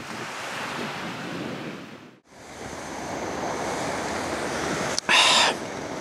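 Small waves washing onto a beach, with wind on the microphone. The sound drops out for a moment about two seconds in, and a short, loud hissing burst comes near the end.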